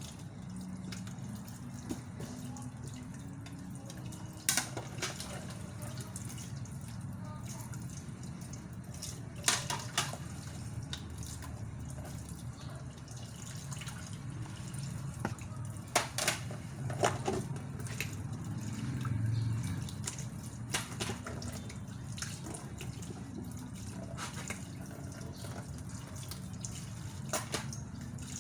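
Water running and dripping in a kitchen sink while dishes are washed, with a few sharp knocks scattered through.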